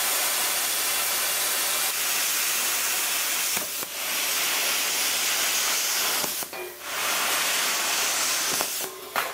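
Plasma cutter cutting thin sheet steel: a loud, steady hiss of the arc and air jet, dipping briefly three times.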